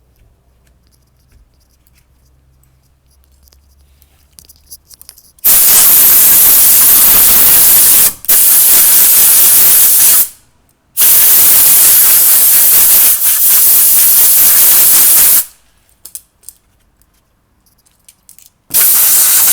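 Compressed-air blow gun hissing in four long blasts with short pauses between, blowing dust out of a truck's engine air filter. The first few seconds are quiet.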